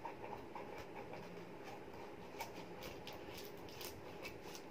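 Scissors cutting into the packing tape and cardboard of a parcel: faint, scattered snips and crackles, more frequent in the second half.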